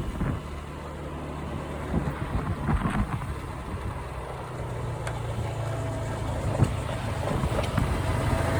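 Motorcycle engine running steadily, growing louder toward the end, with strong typhoon wind buffeting the microphone.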